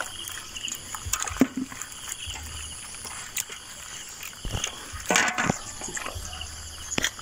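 Insects shrilling steadily in wet grass, with a few scattered knocks and one louder short rustling splash about five seconds in.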